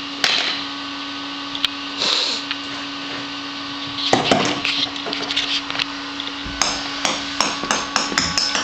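Knocks and clatters of a toddler handling and banging kitchen toys, with a quick run of sharp clicks near the end, over a steady hum.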